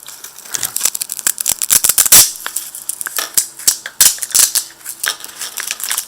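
Nylon knife sheath being handled and its Velcro strap worked: a run of irregular crackling, ripping noises, loudest about two seconds in.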